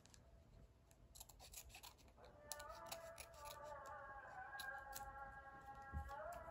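Faint series of short, sharp clicks and snips, with a soft sustained chord of background music coming in about two seconds in.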